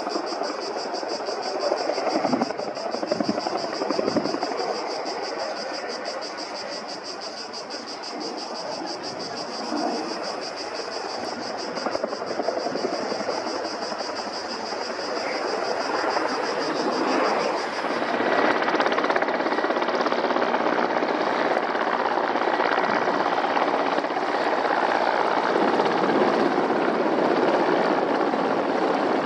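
Mil Mi-8 helicopter's twin turboshaft engines and rotor running, a steady rush of rotor noise under a high turbine whine. About two-thirds of the way through the whine drops away and the rush grows louder.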